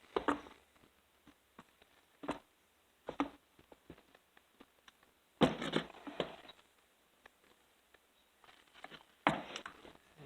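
Scattered knocks and short clatters of chainsaw parts being handled and fitted together, as the fuel tank and wiring harness are worked into place; the loudest knocks come about halfway through and near the end.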